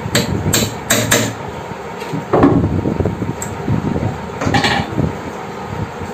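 Small hammer tapping screws into the wooden side of a drawer to fix a metal drawer-slide channel: four sharp strikes in about the first second, a duller knock a little later, then a couple of lighter metallic clicks.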